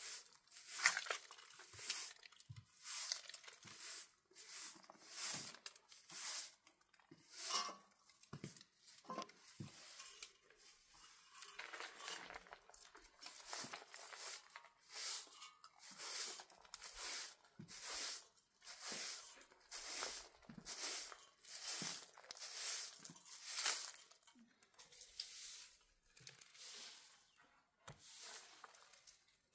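Bundled straw broom sweeping a concrete floor: a steady run of scratchy brushing strokes, about one a second, growing fainter near the end.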